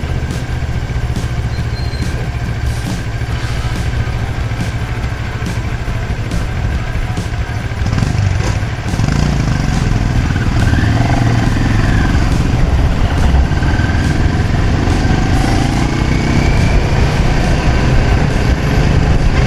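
CFMoto 650MT's parallel-twin engine running as the motorcycle rides slowly in traffic, heard from the rider's position with road and wind noise. The engine grows louder about nine seconds in.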